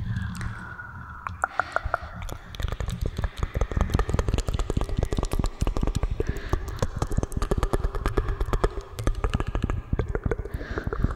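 Close-miked ASMR trigger sounds: a dense, rapid run of crackling clicks, starting about a second and a half in. Underneath are a faint sustained tone and a low rumble.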